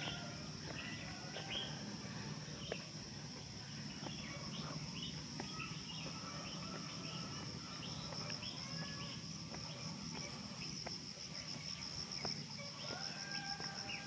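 Steady high-pitched drone of insects in the trees, with short bird chirps scattered through.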